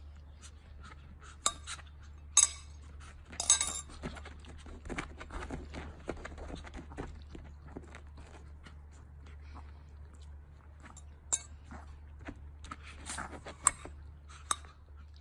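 Sharp clinks and clicks, the loudest a cluster about two and a half to three and a half seconds in and a few more near the end, with softer ticking in between, over a steady low hum.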